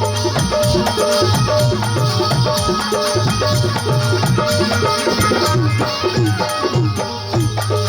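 Marwari devotional folk bhajan music: a stepped melody line over a steady, repeating percussion beat with a rattling shaker-like sound.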